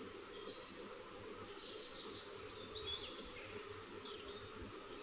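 Low, steady background noise with faint, short high-pitched bird chirps now and then.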